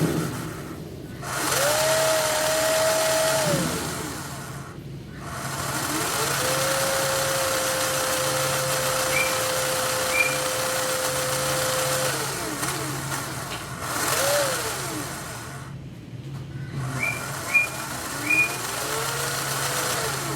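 Small electric motors of RC models whining as they spin up, hold a steady pitch and wind down again, five times, the longest run lasting about six seconds, over a steady low hum. A few short high chirps sound about nine seconds in and again near the end.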